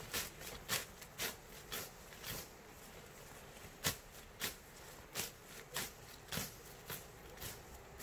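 Leafy garden plants rustling and snapping as weeds are pulled by hand: short crackling rustles, one or two a second, with a brief pause about a third of the way through.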